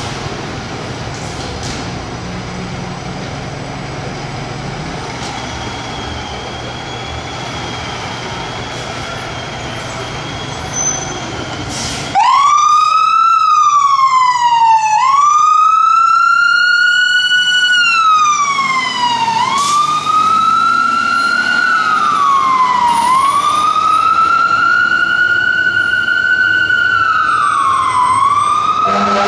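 2017 Spartan Gladiator fire engine's diesel idling with a low rumble. About twelve seconds in, its siren comes on loud and wails up and down in slow sweeps of about three to four seconds each, continuing to the end.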